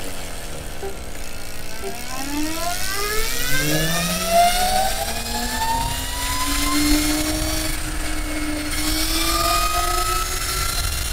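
Aeon Ai-1 Sport electric scooter under way: the whine of its electric drive and chain climbs in pitch as it speeds up from about two seconds in, then levels off, over steady road rumble.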